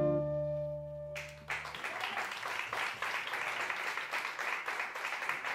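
The last chord of a choro ensemble of guitars, cavaquinho and flute rings and fades away, and then an audience breaks into applause about a second and a half in, which carries on steadily.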